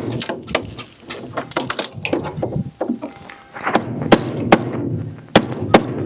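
Irregular sharp knocks and cracks of a wooden shipping crate being opened with a hammer and a small pry bar, about a dozen strikes and cracks of wood.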